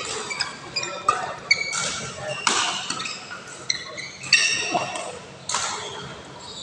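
Badminton rally on an indoor court: players' shoes squeaking sharply on the court mat in short chirps, with the sharp strike of rackets on the shuttlecock every second or so, in a hall echo.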